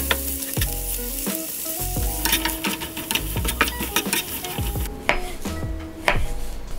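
Julienned vegetables sizzling in a nonstick frying pan while a spatula stirs them, scraping and tapping the pan. About five seconds in the sizzling stops, and a knife cuts through avocado onto a cutting board with a few sharp knocks.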